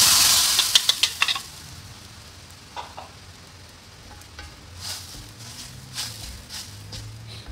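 A curry spice mix is tipped into hot oil and fried paste in a wok and sizzles loudly, fading over the first second and a half with a few sharp clicks. Then a wooden spatula stirs and scrapes through the mixture over a low, steady sizzle.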